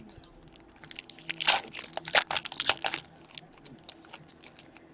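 Crinkling and crackling of a plastic trading-card pack wrapper being handled, with a dense run of crackles between about one and three seconds in.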